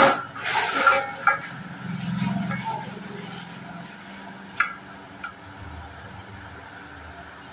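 Kitchen handling sounds: a plastic bag rustling and being crumpled, with a few sharp clinks and knocks from a steel colander, the loudest in the first second and two short ones later.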